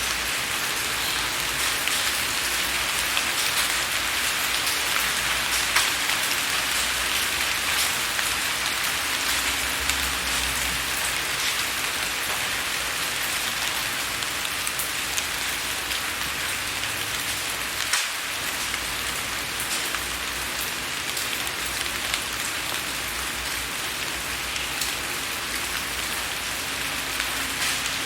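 Steady rain falling on a window pane: an even hiss of rain with many small, sharp ticks of individual drops striking the glass, a couple of them a little louder.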